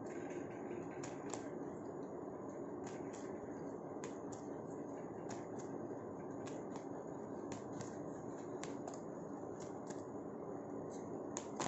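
A tarot deck shuffled by hand: a steady soft rustle of cards sliding against each other, with light irregular clicks as cards snap and tap together, about one or two a second.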